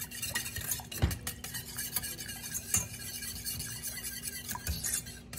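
Wire whisk stirring flour gravy in a stainless steel saucepan, its wires scraping and clicking against the pan. The gravy of meat drippings and flour is being heated and stirred until it bubbles and thickens.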